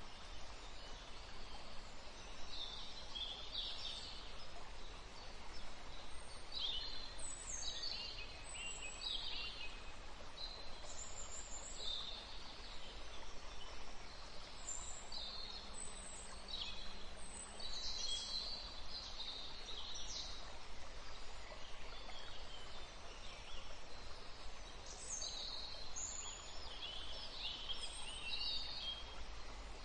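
Birds chirping and calling in many short, quick phrases throughout, over a steady soft hiss.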